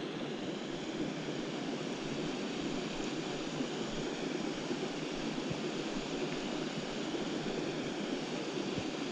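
Small creek's water running steadily, an even rushing wash with no distinct events.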